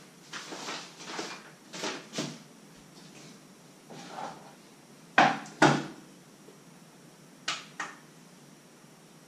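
Kitchen handling sounds from a bowl and utensils on a wooden worktop: soft rustling and scraping at first, then sharp knocks, the loudest a pair about five seconds in and a fainter pair near the end.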